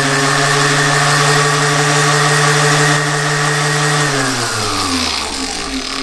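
Random orbital sander's brushed motor running steadily at high speed, then slowing about four seconds in, its whine falling in pitch, as a light dimmer switch turns it down: dimmer speed control working on a brushed motor.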